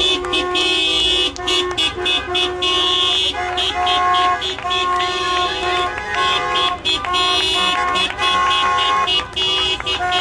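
Car horns honking from several passing vehicles, short toots and longer held blasts at different pitches overlapping almost without a break: drivers honking in support of the roadside demonstrators.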